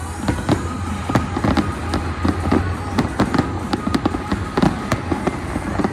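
Fireworks bursting in rapid succession: many sharp bangs, several a second, some close together in clusters, with music playing underneath.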